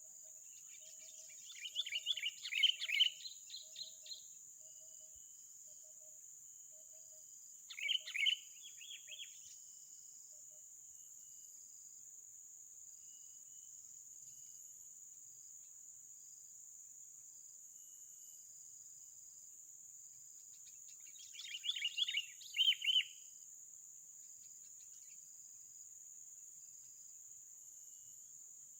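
A bird calling in three short chattering bursts, about a second in, about eight seconds in and past twenty seconds, over a steady high-pitched insect drone.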